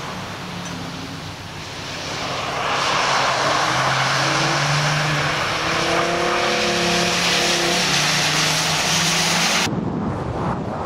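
Car engines revving and tyres hissing through standing water as cars slide around a wet skid pad; the hiss swells about two and a half seconds in. Near the end it switches abruptly to a muffled rumble heard from inside a car.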